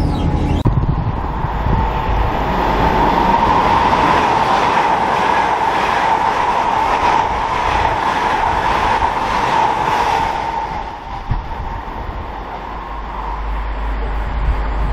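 LNER Azuma express train passing through a station at speed: a steady whine and fast, even wheel clatter for about ten seconds, then dying away. Low wind rumble on the microphone near the end.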